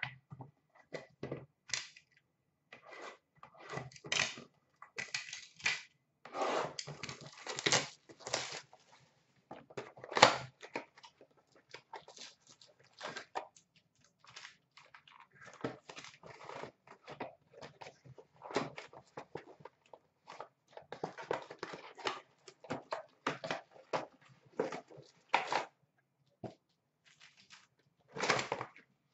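Hockey card packs being torn open and their wrappers crinkled, with a cardboard mega box being opened and cards handled. The sound is irregular rustling and ripping with short pauses, and one sharper rip or snap about ten seconds in.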